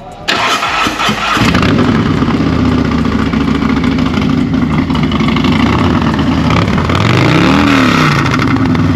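Harley-Davidson Road King Special's V-twin engine cranked on the starter and catching after about a second, then idling steadily, with one quick blip of the throttle that rises and falls near the end.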